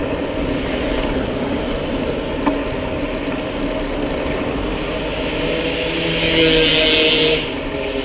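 Steady road and wind noise from riding a bicycle on a city road, with a motor vehicle's engine running. A louder hiss swells about five and a half seconds in and cuts off sharply shortly before the end.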